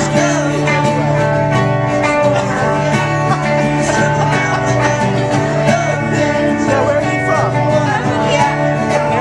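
Band music: guitar playing with a singing voice over it, steady throughout.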